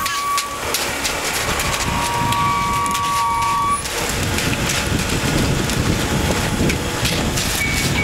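Ready-mix concrete truck running while wet concrete pours down its chute into the slab forms and is raked into place: a steady, continuous engine-and-concrete noise.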